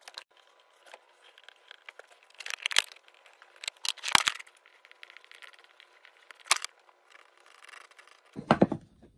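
Pencil scratching as it traces a metal tang's outline onto wooden handle scales, with several sharp clicks of the wood pieces and tang being handled and a duller knock near the end.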